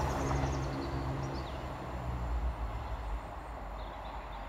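Class 170 Turbostar diesel multiple unit moving away, its engine drone and low rumble fading steadily, with the engine's hum dying out about two seconds in. A few bird chirps near the start.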